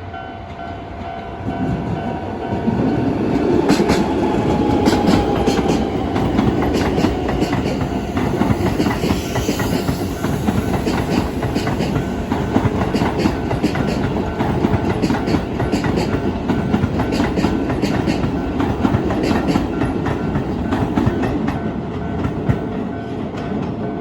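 Keisei 3000-series electric train passing a level crossing at speed. It swells into a loud rumble about two seconds in, with the wheels clattering over rail joints in a quick, steady rhythm. The crossing's electronic warning bell keeps ringing behind it.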